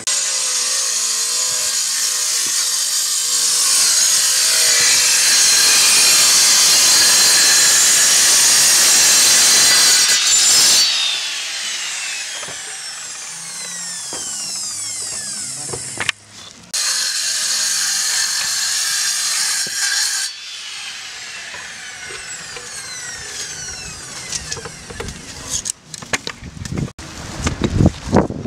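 Power saw with a diamond blade cutting through a concrete roof tile, a loud steady grinding cut of about ten seconds, then the blade spinning down with a falling whine. A second, shorter cut follows about two thirds of the way through and spins down again, and sharp knocks come near the end.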